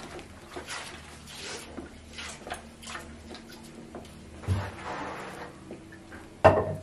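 A metal utensil stirring and turning chicken pieces in a large aluminium cooking pot, with scattered clicks and scrapes against the pot. There is a rushing scrape about four and a half seconds in and a loud knock near the end.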